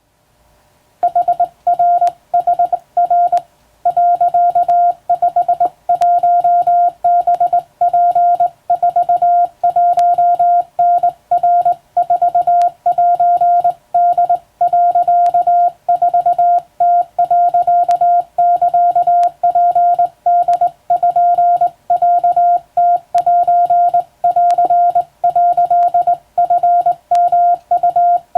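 Hand-keyed Morse code: a single steady beep switched on and off in dots and dashes by a telegraph key, sending Japanese wabun code. It starts about a second in and runs on with short gaps between characters.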